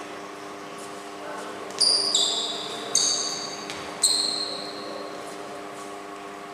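Badminton rally: four racket strikes on the shuttlecock in about two seconds, each a sharp high ping that rings briefly, over a steady low hum.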